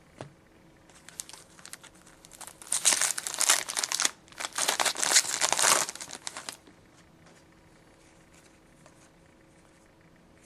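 Plastic wrapper of a hockey trading-card pack being torn open and crinkled, in two bursts a few seconds in, then a few faint handling clicks.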